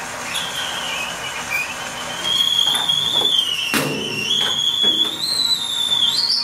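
Electric hoist motor whining with a high, steady tone that drifts slightly in pitch as it lifts a metal toolbox on a chain and hook. A sharp clank about four seconds in, with a few fainter knocks.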